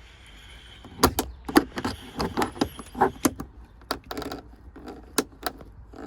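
Small flat-blade screwdriver clicking and scraping against the plastic tabs of a car's overhead cargo light housing as it is pried at. An irregular run of sharp clicks and knocks starts about a second in and thins out near the end.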